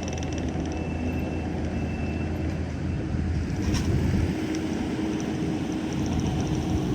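Heavy diesel engine running steadily, with one sharp click a little over halfway through.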